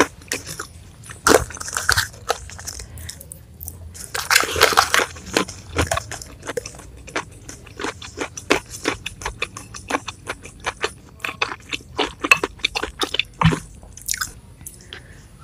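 Close-miked chewing and crunching of raw petai beans and meatball soup, heard as rapid crisp clicks and wet mouth sounds. There is a louder wet burst about one and a half seconds in and another around four to five seconds in.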